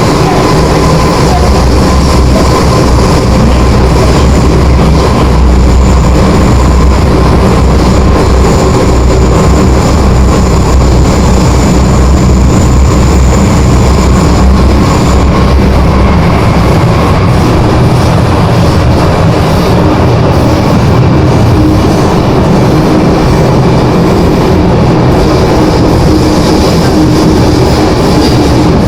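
MTR Island Line M-Train car running between stations, heard from inside the car: a steady running rumble with the car's strong howling whine, the '鬼叫' ('ghost howl') this particular car, C425, is known for. A high thin whistle sits over it from about five seconds in to about fifteen seconds in.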